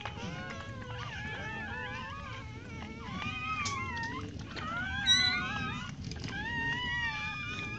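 A litter of newborn bully-breed puppies squeaking and whining all at once, many thin wavering cries overlapping, with one louder, sharper yelp about five seconds in.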